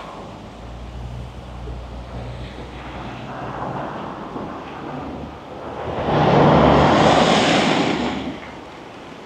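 Street traffic: a low engine hum, then a vehicle passes close by from about six seconds in, swelling and fading over about two seconds. The pass is the loudest part.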